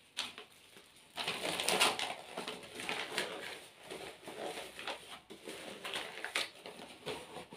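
Plastic or paper packaging rustling and crinkling as it is handled and squeezed, starting about a second in and going on irregularly with small crackles.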